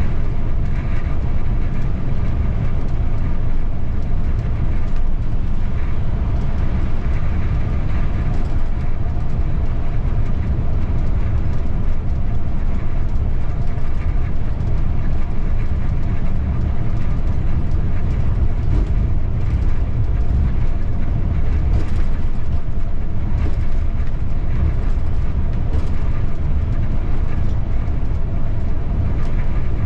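Bus in motion, heard from the driver's cab: a steady low rumble of engine and road noise with no breaks.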